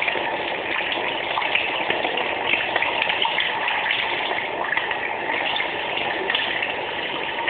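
Steady running water splashing over an opened Swiss Army knife as it is rinsed clean.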